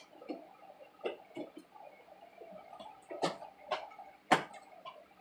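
Homemade slime being squished and worked by hand, giving irregular sticky clicks and pops, the loudest about four seconds in.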